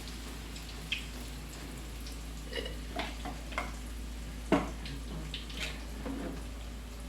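Food frying in hot oil in a pan with a steady sizzle, broken by scattered clicks and knocks of a utensil against the pan, the loudest about four and a half seconds in.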